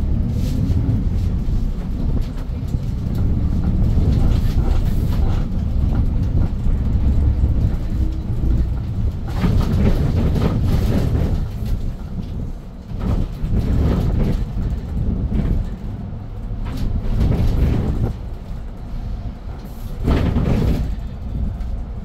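Inside the cabin of a Hyundai New Super Aerocity city bus with its C6AF CNG engine, driving off and accelerating: a steady low engine and road rumble whose engine note rises over the first several seconds. Louder spells of rumble and rattle come and go around the middle and near the end.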